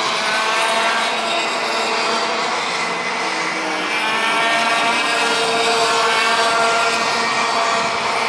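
A pack of ROK Senior racing karts, each with a 125 cc two-stroke engine, running at race pace. Several engine notes overlap and rise and fall in pitch as the karts speed up and slow.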